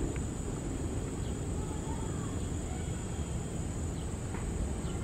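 Distant jet airliner rumbling low and steady as it rolls along the runway, under a steady high drone of insects, with a few short bird chirps scattered through.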